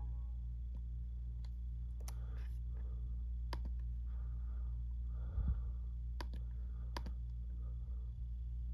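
About half a dozen sharp, scattered clicks from a laptop's pointer being clicked, over a steady low hum. There is a brief low thump about five and a half seconds in.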